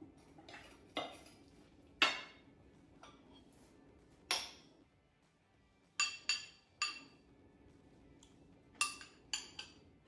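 Metal serving spoon and fork clinking against ceramic bowls as salad is tossed and served: about nine sharp clinks with short ringing, the loudest about two seconds in.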